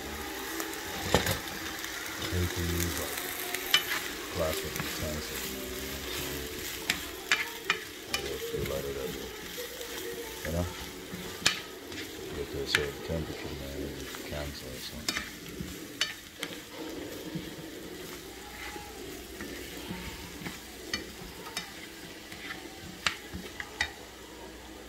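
Red onion, mushrooms and green onions sizzling in a nonstick skillet while they are stirred, the utensil clicking and scraping against the pan many times over a steady frying hiss.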